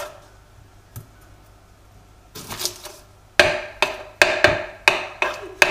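Kitchen knife chopping an onion on a wooden cutting board: a few single cuts, then from about three and a half seconds in a run of sharp knocks of the blade on the board, roughly three a second.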